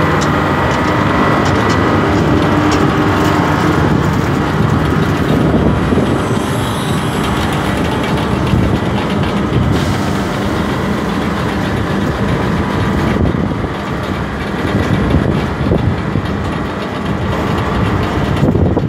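Speed Star 40 water-well drilling rig running, its engine giving a steady, heavy mechanical drone.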